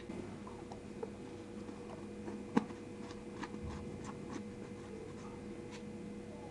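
Light clicks and taps of a hand handling a glass jar of homemade jam with a plastic screw lid, with one sharper knock about two and a half seconds in, over a faint steady hum.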